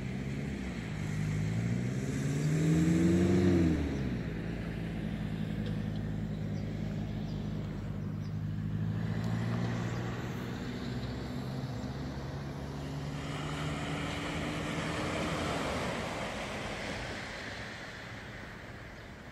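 A road vehicle's engine revving up twice in the first few seconds, dropping in pitch as if shifting gear, then running at a steady pitch before fading away at about sixteen seconds. A hiss rises in the later part.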